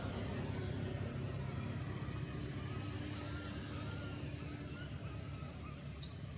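Steady low outdoor rumble of background noise, with faint thin wavering whistles in the middle and a couple of short high squeaks near the end.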